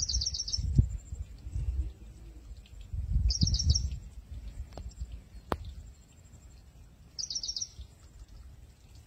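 A bird repeats a short, rapid series of high chirping notes three times, about every three and a half to four seconds. Under it is a low rumble, strongest in the first second and again around three seconds in, and there is a single sharp click about five and a half seconds in.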